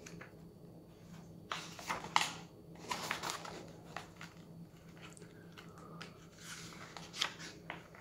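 Paper pages being turned and handled by hand: faint, intermittent rustles and crinkles of sheets.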